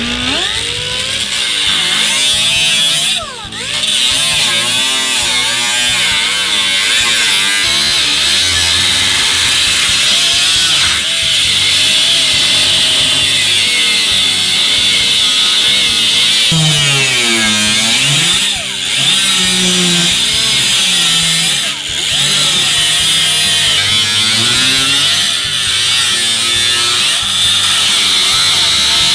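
Pneumatic cutoff wheel grinding through the steel floor of a car's rear trunk pan, a steady high whine whose pitch swoops up and down as the wheel bites and eases off, dropping out briefly a few times.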